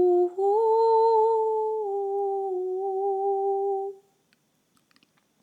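A woman humming a long, held wordless note that steps up a little just after the start, drops back about two seconds in, and fades out about four seconds in; a few faint clicks follow.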